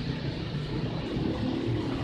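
Steady low background noise with a faint hum; no horn sounds when the horn wires are bridged, because the horn connector is unplugged.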